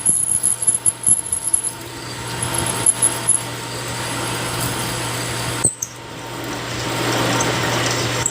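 Metal lathe running while a drill bit cuts into a steel workpiece: a steady motor hum under a rough cutting noise, with a few sharp clicks in the first two seconds. The noise drops out suddenly about six seconds in and then builds back up.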